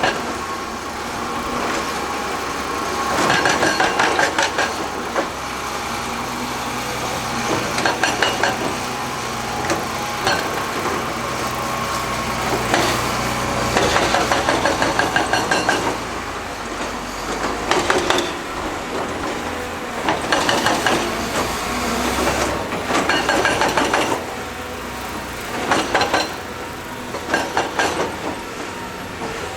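Heavy construction machinery: a diesel engine runs steadily under repeated bursts of rapid metallic clattering every few seconds.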